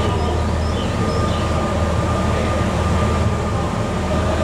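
Steady low rumble of a train, with a thin steady tone above it and faint short high chirps.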